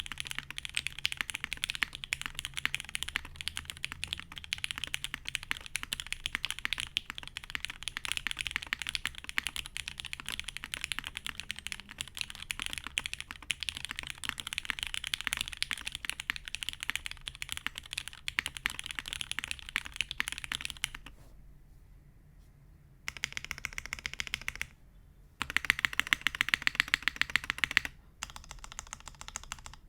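Typing on a GHS.RAR custom mechanical keyboard with lubed Cherry MX Black linear switches on an aluminium plate, capped with GMK doubleshot ABS keycaps. Fast, continuous keystrokes run for about twenty seconds, then stop for a couple of seconds. Shorter bursts follow, the loudest about three-quarters of the way through, with softer typing near the end.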